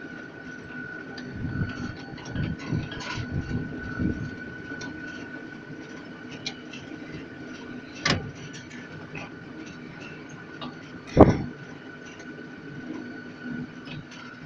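Elevated amusement-park ride train running along its track, heard from on board: a steady rumble with a constant high whine. It gives two sharp clunks, about eight and eleven seconds in, the second one loudest.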